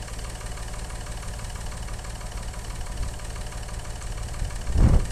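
A vehicle engine idling with a steady low rumble. Near the end comes a brief, louder low rumble.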